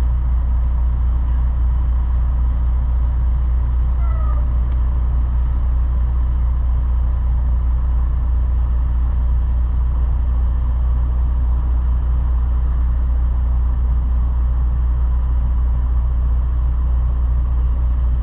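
Semi truck's diesel engine running steadily at low speed, heard from inside the cab as a constant deep rumble while the truck creeps forward.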